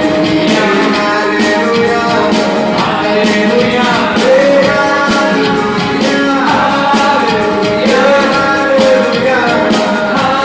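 Live band playing with sung vocals: a singer's voice over keyboard and drums with a steady beat.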